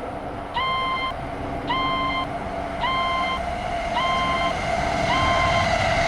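Japanese railroad crossing warning bell starting up, ringing one electronic tone a little under once a second, five rings in all. A low steady noise swells beneath it in the second half.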